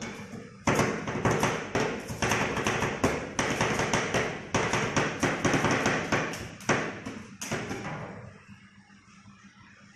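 Two flat steel spatulas chopping ice cream on a frozen steel cold plate: rapid repeated metal clacks, about three a second, that stop about eight seconds in.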